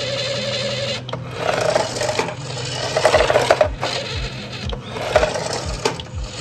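Small electric motor and plastic gearbox of a toy RC pickup truck whirring: a steady whine at first, then in short bursts that start and stop. From about three seconds in there is also a regular low thudding, two to three a second.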